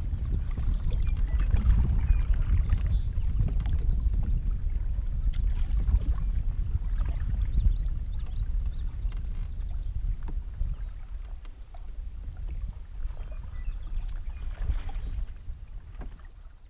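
Canoe being paddled on a river: paddle strokes dipping and splashing, with scattered light clicks, over a low rumble of wind on the microphone. It fades out near the end.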